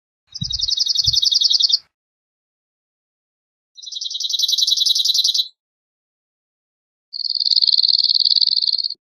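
Cirl bunting singing: three dry, rattling trills, each a fast run of the same short note repeated on one pitch for about a second and a half, with pauses of about two seconds between them.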